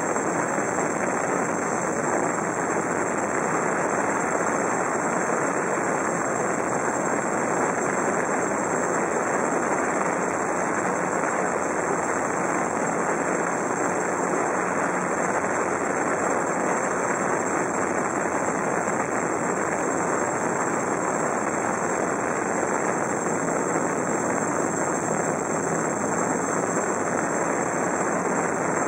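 GAUI QuadFlyer 330X quadcopter's electric motors and propellers running steadily in flight, heard from the craft's own onboard camera, with wind on the microphone.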